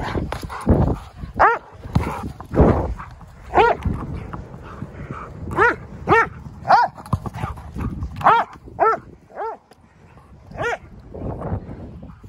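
A dog barking in short, high-pitched yips during play, about ten of them at irregular intervals, each rising then falling in pitch.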